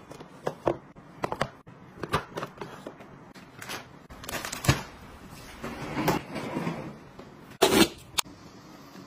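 Hard plastic clicks and knocks from handling a plastic rolling storage cart, its slide-out tray and baskets, with a stretch of rustling in the middle. A louder thud comes near the end.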